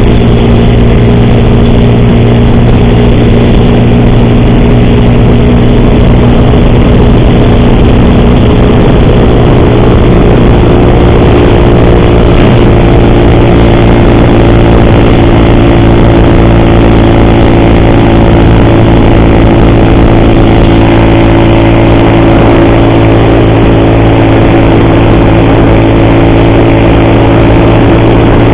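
Motorcycle engine running steadily at cruising speed while riding, loud and even throughout.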